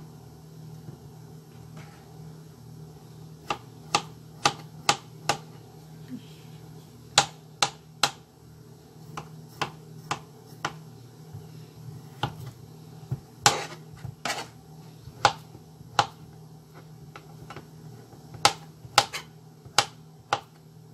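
Kitchen knife chopping boiled potatoes on a cutting board: irregular single sharp knocks, roughly one every half second to second, some louder than others.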